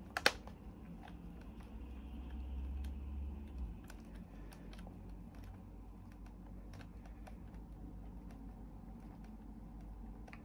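Small screws being driven into a model car's door sill: scattered light clicks and taps, with one sharp click just after the start and a low rumble for about a second and a half near the middle.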